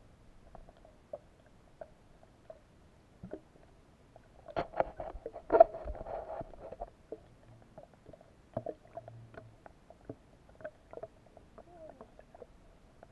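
Underwater sound picked up by a submerged camera: scattered small clicks and knocks, with a louder flurry of knocks about five to seven seconds in.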